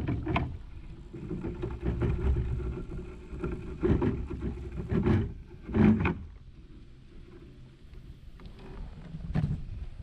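Scattered knocks and bumps on a plastic fishing kayak, five or so, the loudest about six seconds in, over a low rumble of wind on the microphone.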